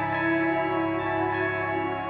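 Background music: calm, ambient music of sustained, held chords.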